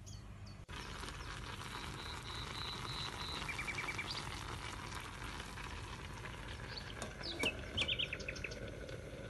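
Diced apples simmering in sugar syrup in a steel pot on a gas hob: a steady bubbling sizzle that starts about a second in. Birds chirp and trill in the background several times.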